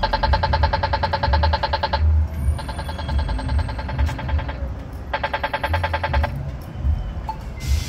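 Polara accessible pedestrian signal push button sounding its rapid tick, the walk indication: a fast, even electronic ticking that plays in three stretches with short breaks between them, over low traffic rumble.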